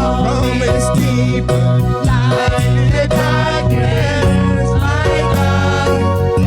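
Live gospel worship music: a band with keys, bass and drums playing a slow song, with singing.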